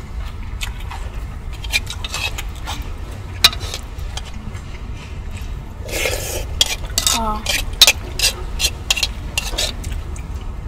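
Spoon and chopsticks stirring and clinking in a takeout bowl of jjamppong noodle soup, with scattered sharp clicks and a longer scrape about six seconds in, over a steady low hum.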